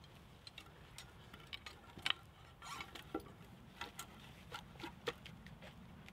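Irregular light clicks and knocks of a bundle of cut wooden poles shifting and knocking together as a carrying strap is pulled tight around them and the bundle is lifted. The sharpest knock comes about two seconds in.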